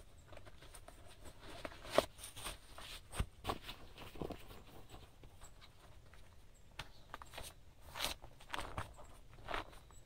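Irregular light rustles and clicks, about a dozen spread over ten seconds, with no steady sound beneath them.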